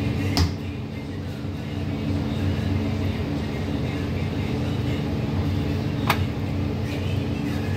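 Steady hum of an electric table fan, broken by two sharp knocks about six seconds apart.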